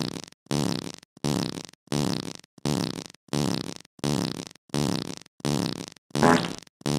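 Fart sounds repeating over and over, about ten short blasts at roughly one and a half per second with silent gaps between them. One blast near the end is louder and higher-pitched than the others.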